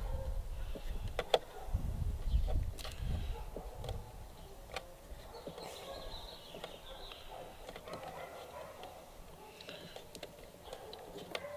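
Scattered small clicks and low handling bumps of hands working at the plastic radio box and wiring of an RC boat, busiest in the first few seconds, then fainter.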